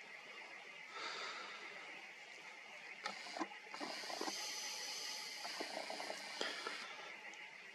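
Nikon P1000's lens zoom motor whirring for about three seconds, starting about halfway through as the lens zooms in, heard through the camera's own microphone. Under it are a faint steady hiss and a few light handling clicks.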